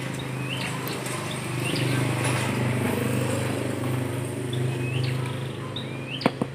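A steady engine hum, swelling for a few seconds in the middle, with short rising bird chirps over it. Near the end come three sharp metallic clicks, the loudest sounds, as the small steel parts of a PCP air rifle's fill coupler are handled.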